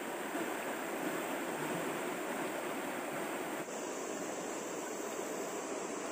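Steady rushing water noise with no distinct events. Its high hiss changes abruptly a little over halfway through.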